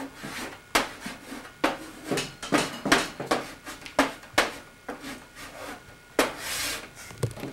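Letters being scraped onto the plastic top of a VCR by hand: a quick series of short scraping strokes, with one longer scrape near the end.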